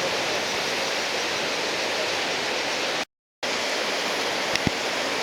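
Heavy surf from a typhoon swell, a steady rush of breaking waves that cuts out for a moment about three seconds in.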